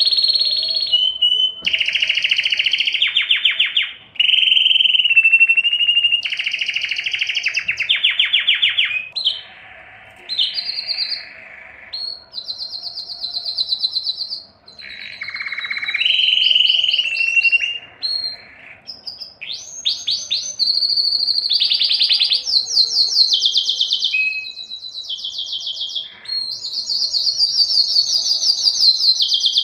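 Male domestic canary singing in breeding condition: a long song of fast trills, each a rapid run of repeated notes held for a second or two before switching to another pitch, with a few short pauses.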